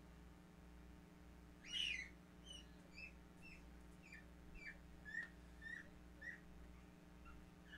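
A bird calling: one louder squawk about two seconds in, then a string of short chirps at about two a second, over a faint steady hum.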